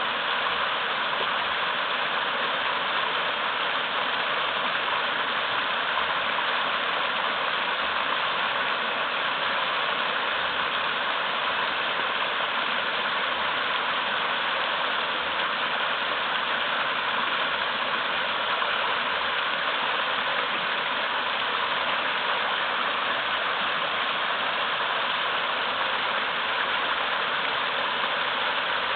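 Small mountain-river waterfall flowing swiftly over large boulders: a steady, unbroken rush of splashing water.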